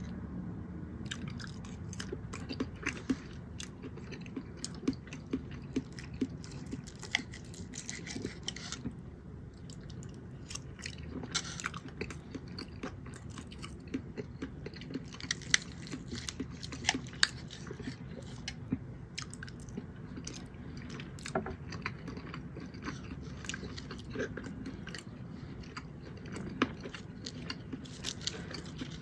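Close-miked chewing and mouth sounds of a person eating a meal, with many short, sharp clicks and smacks throughout.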